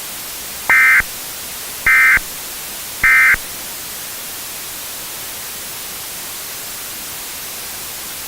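Emergency Alert System end-of-message data tones: three short, buzzy bursts about a second apart that signal the end of the alert. A steady static hiss runs underneath.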